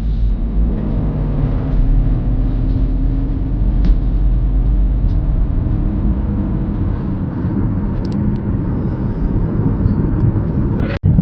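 Car driving, heard from inside the cabin: a steady low rumble of road and engine noise, broken by a brief sudden cut just before the end.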